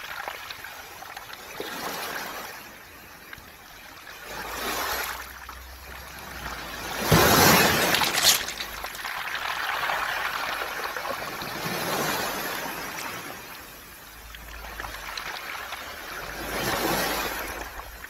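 Waves washing up a beach of smooth round pebbles and draining back, rattling the stones. It comes in repeated surges, the loudest about seven seconds in.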